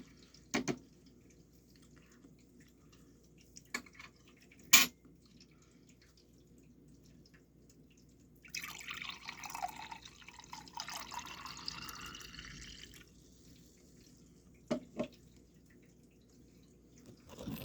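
Liquid running or pouring for about four seconds in the middle, with a few scattered sharp knocks and clicks around it.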